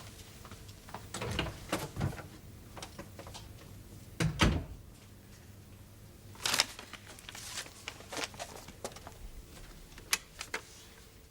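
Scattered small knocks, clicks and rustles of objects being handled, with a heavier thump about four seconds in and a short rustle a couple of seconds later.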